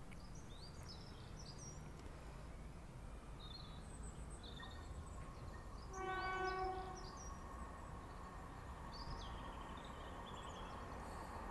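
Distant train horn giving one short blast about halfway through, under a second long, from a train approaching the station. Birds chirp on and off over a low, steady background rumble.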